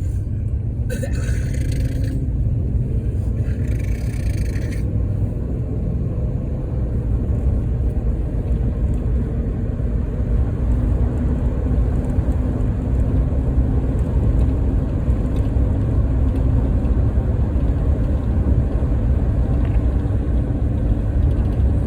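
Steady low rumble of a van driving, heard from inside, with two short hissing bursts about one and three and a half seconds in.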